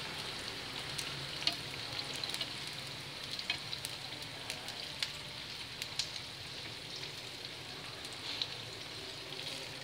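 Hot oil sizzling steadily as wontons and a breaded chicken piece deep-fry in a small pan, with scattered crackling pops.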